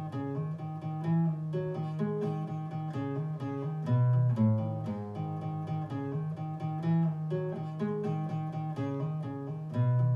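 Acoustic guitar music, plucked notes over low bass notes, played back through Sonus Faber Toy Tower floorstanding loudspeakers driven by a home-built KT120 valve amplifier.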